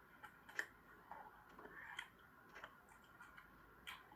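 Faint, sparse clicks of cutlery against a plate, about three in four seconds, with quiet chewing between them.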